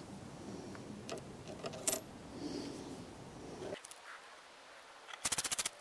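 Tools handled on a wooden bench: a sharp metallic clink about two seconds in, then near the end a short run of rapid, even clicks from a ratcheting screwdriver being turned.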